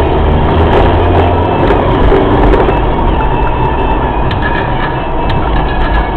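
A car driving over a cracked, broken asphalt road, heard from inside the cabin. Tyres and engine make a steady rumble, with a few sharp knocks and rattles in the second half.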